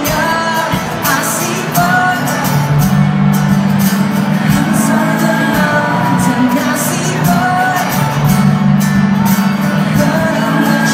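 A man singing over an acoustic guitar played live, amplified through a PA in a large hall.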